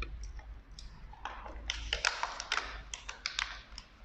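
Handling a roll of butyl sealing tape: a run of irregular crinkly rustles and sharp little clicks as the tape is cut and its backing is peeled off.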